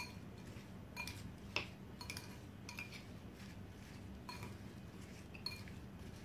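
A metal spoon clinking against a glass bowl while diced apples with sugar and cinnamon are stirred: light, irregular clinks, about eight of them.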